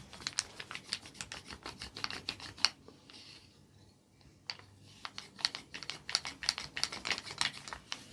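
Skin-cracking massage: rapid, sharp snapping clicks from skin being pinched and pulled, several a second, in two runs with a pause of about a second and a half in the middle.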